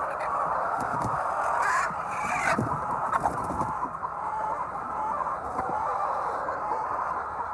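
A flock of hens clucking continuously in a dense, overlapping chatter, with a brief rustle about two seconds in.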